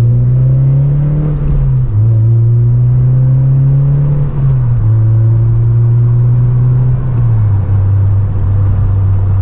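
Honda Civic Si's K24 four-cylinder breathing through a Full Race cat-back exhaust, accelerating with a low rumble. Its pitch climbs through each gear and drops at three upshifts, about two, four and a half and seven and a half seconds in.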